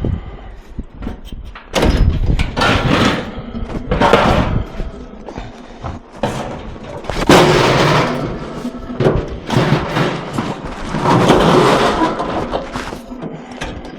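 Scrap metal banging and clattering as it is shifted about on a loaded truck, in several loud bursts of crashing and scraping.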